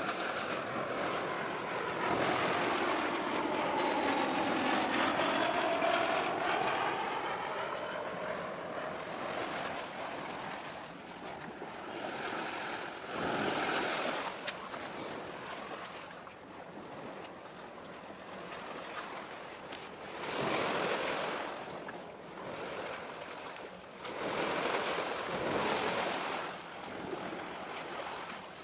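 Sea waves washing in, with wind on the microphone, in several swells. A long whooshing swell fills the first nine seconds or so, and shorter ones come about halfway through and twice near the end.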